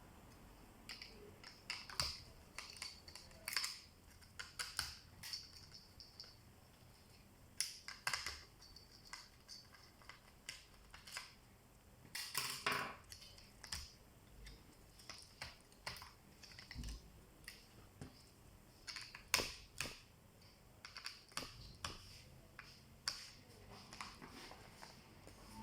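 Lenovo IdeaPad Z500 laptop parts being handled and worked on: irregular light clicks, taps and short scrapes of plastic and small metal parts, with one longer scrape about halfway through.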